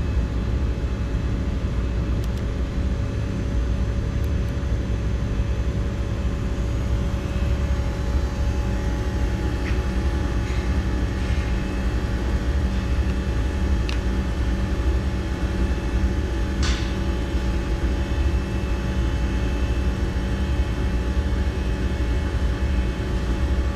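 Milltronics Partner 1G CNC vertical machining center running: a steady motor hum with a constant whine, a higher whine joining about nine seconds in, and a few light clicks.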